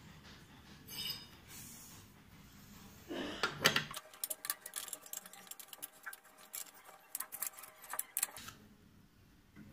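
A 19 mm axle nut on a scooter wheel being tightened with a long-handled wrench: a metal clunk and rattle about three seconds in, then a run of quick metal clicks for about four seconds as the wrench works.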